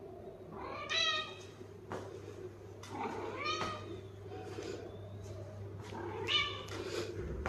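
A cat meowing three times, each call about half a second to a second long and rising then falling in pitch, over a faint steady low hum.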